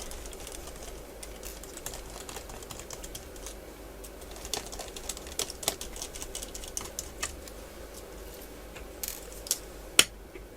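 Quick light clicks and ticks of a small screwdriver taking screws out of a Medion E2291 laptop's battery, thickest in the middle, with one sharp louder click about ten seconds in.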